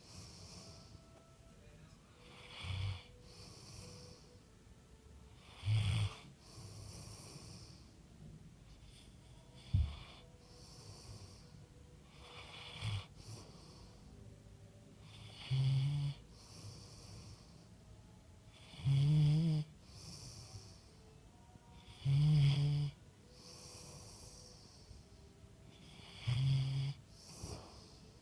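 Snoring in a slow rhythm, a breath about every three seconds with a breathy hiss in between. From about halfway through, the snores grow louder and take on a low, pitched rumble.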